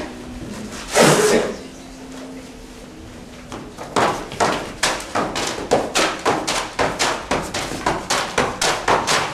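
Boxing gloves punching paper held up as targets: a fast, even run of sharp hits, about three a second, starting about four seconds in. A single loud burst of noise comes about a second in.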